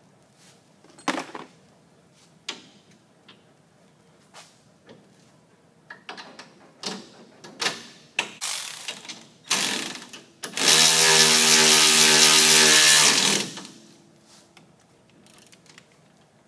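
Scattered metal clicks and clinks of parts and tools being handled, then a cordless ratchet runs for about three seconds with a steady motor whine, driving in the shock bolt.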